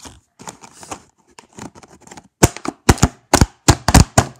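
Plastic slime-container lid being pressed and snapped onto the tub: a string of sharp plastic clicks and knocks, soft at first, then about eight loud ones in quick succession in the second half.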